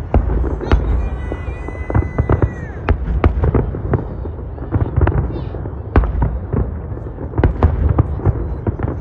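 Distant aerial fireworks display: a rapid, irregular run of bangs and crackles from bursting shells over a constant low rumble. A high whistle holds for about two seconds, then drops in pitch about three seconds in.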